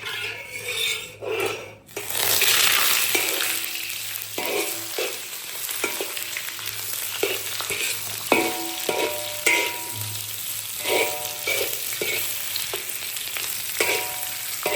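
Sliced cured sausage goes into hot oil with a sudden loud sizzle about two seconds in, then keeps sizzling steadily as it is stir-fried. A spatula scrapes and clinks against the metal pan every second or so.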